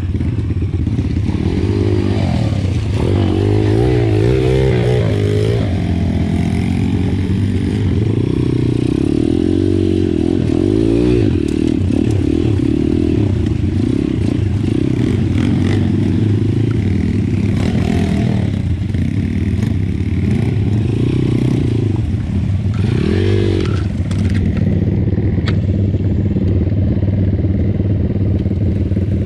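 Pitbike engine running on an off-road ride, its revs rising and falling again and again, with occasional knocks from the bike over rough ground.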